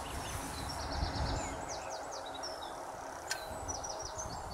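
A small songbird singing two short phrases of quick, high chirping notes over a low outdoor rumble, with one sharp click a little past three seconds in.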